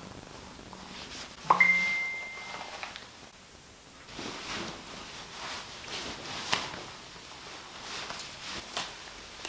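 A single ding about one and a half seconds in, ringing on one steady note for about a second, followed by faint clothes rustling as a garment is pulled off and on.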